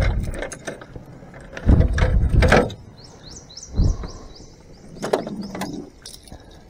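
Knocks, bumps and scrapes on the boat's hull and deck as a fish is clipped onto a metal stringer, the heaviest bumps about two seconds in. A quick run of high chirps sounds about three seconds in.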